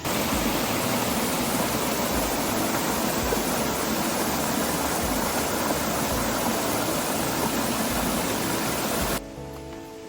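Steady rushing water, running as a dense even noise that cuts off abruptly about nine seconds in.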